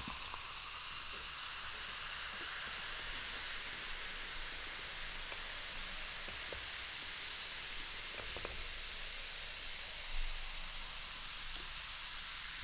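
Freeway cola poured slowly from a can into a glass mug over ice, fizzing with a steady hiss as the foam head rises.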